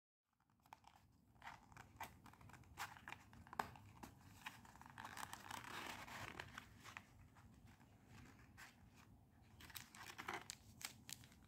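Faint crinkling and rustling of packaging being handled and opened, with many small clicks and taps scattered through it.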